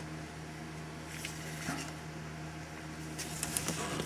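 Faint clicks and scraping of hands working a door latch cable and its plastic bracket inside a car door, in two short spells, over a steady low hum.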